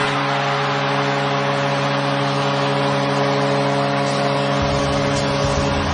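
Arena goal horn sounding one long, steady blast over a cheering crowd, marking a home-team goal. A deep bass sound comes in under it about four and a half seconds in.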